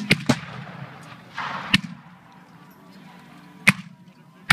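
Scattered black-powder musket shots from a re-enactment firing line: about five single reports spread over the seconds, two in quick succession at the start and the loudest two near the end.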